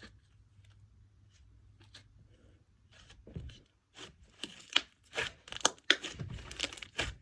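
Hands squishing and stretching a sizzly, bubbly, glossy slime, giving a dense run of crackling pops and clicks that starts about three seconds in and gets louder.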